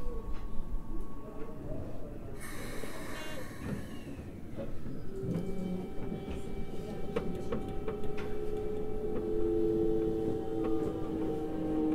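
A Toei 5300 series electric train's GTO-VVVF inverter whining as it pulls away from a stop. Several steady tones start about five seconds in and slowly shift in pitch as the train gathers speed. A short burst of hissing comes about two and a half seconds in, before the whine.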